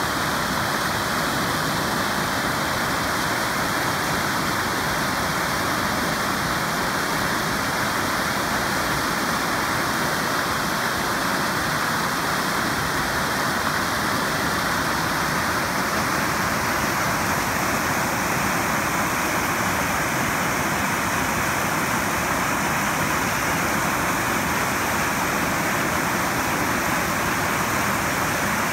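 A creek in flood, its muddy water rushing across a submerged road crossing and churning into whitewater over the downstream edge: a loud, steady, unbroken rush.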